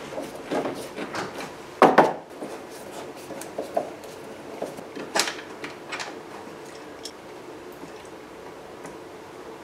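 Plastic interior trim panel being handled and fitted with a screwdriver on the underside of a third-generation Camaro's rear hatch: a series of short clicks and knocks. The loudest knocks come about two seconds in and a sharp click about five seconds in, and it turns sparser near the end.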